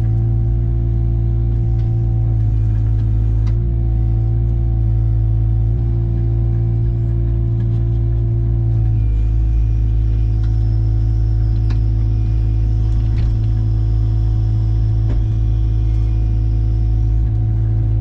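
Diesel engine of heavy earthmoving equipment running steadily under work, its pitch dipping slightly now and then, with a few faint knocks.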